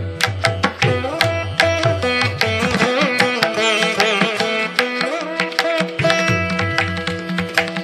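Instrumental background music: a melody with bending, sliding notes over a steady held drone, with quick drum strokes throughout.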